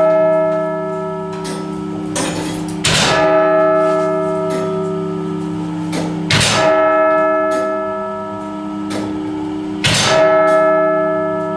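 Barrow Town Hall's hour bell struck by the clock mechanism's hammer, striking twelve. Three strokes come about three and a half seconds apart, each ringing on with several steady tones into the next.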